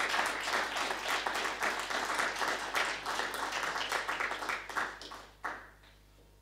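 Audience applauding, a dense patter of many hands clapping that thins out and ends about five and a half seconds in with one last clap.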